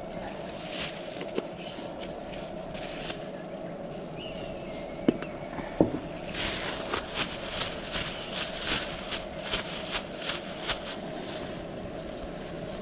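Rustling, crackling and small clicks of objects being handled, over a steady hum. The clicks come more often in the second half, with two sharper clicks about five and six seconds in.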